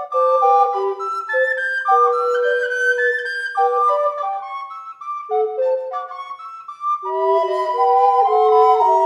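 Recorder trio of soprano, alto and tenor recorders playing a chamber piece in three-part harmony, with held, overlapping notes. About seven seconds in the lower part comes in fuller and the playing grows louder.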